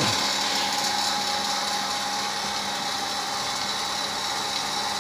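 Oil-lubricated vacuum pump of a portable milking machine running steadily after being switched on: a steady hum with a high whine over a hiss.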